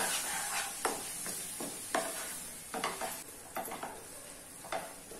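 A flat spatula stirring chopped tomatoes into a hot onion and spice masala in a kadhai. It scrapes or taps against the pan about once a second over a faint, steady sizzle.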